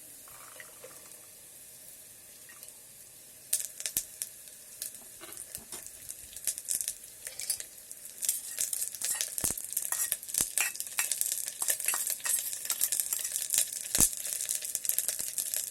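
Green peas, carrots and capsicum going into hot oil with onions in an electric kettle, sizzling from about three and a half seconds in, with a spoon clicking and scraping against the kettle as they are stirred. The sizzle grows louder toward the end.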